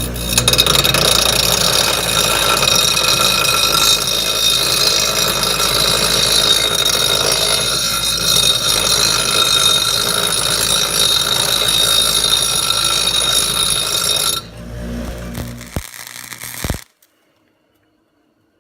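Electric grinder grinding the cut end of a steel bar to clean it and put a slight bevel on it: a loud, steady high-pitched whine over grinding noise. About fourteen seconds in it comes off the metal and drops to a weaker, uneven sound, then cuts off.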